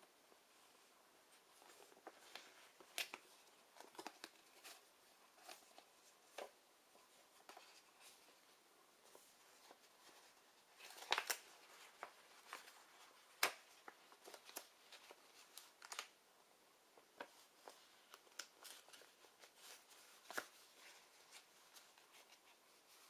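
Faint handling of a clear plastic Blu-ray case and its reversible paper cover sleeve: scattered clicks, taps and rustles. There is a cluster of louder clicks about eleven seconds in and a single sharp click a couple of seconds later.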